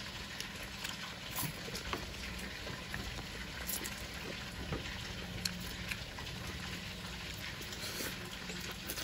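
People slurping and chewing stir-fried rice noodles, with scattered small clicks throughout.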